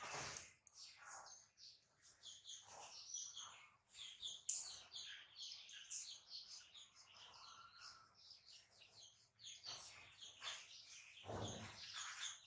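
Faint, busy chirping of small birds, many short high chirps overlapping throughout, with a soft rustle at the start and again near the end.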